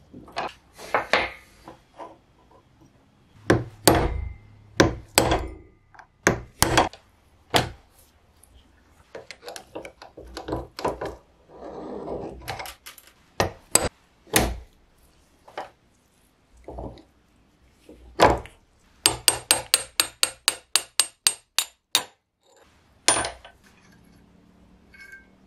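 Metal tools knocking, prying and scraping on the rusty cast-iron frame and bevel gears of an old hand drill being taken apart, in irregular sharp knocks. Near the end comes a quick, even run of about a dozen light taps, about four a second.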